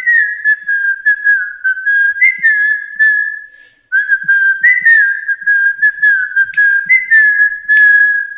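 A man whistling a melody through pursed lips, sliding between notes, in two phrases with a short break about four seconds in.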